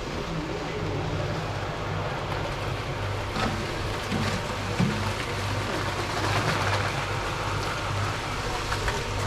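An engine idling steadily with a low, even pulse, with a few short knocks and a stretch of scraping noise partway through.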